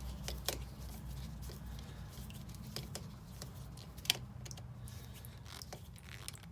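Hands working on the well pump's electrical wire connections: scattered small clicks and rustles, the loudest about four seconds in, over a low steady hum.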